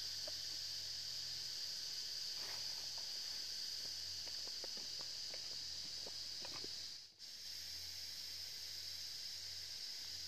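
Steady high-pitched drone of insects, with a few soft rustles and taps in the middle; the sound drops out for an instant a little after halfway.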